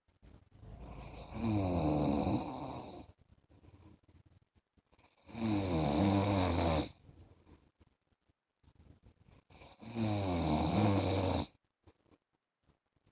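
A man snoring: three long snores about four seconds apart, each lasting about two seconds with a wavering pitch, and near-quiet gaps between them.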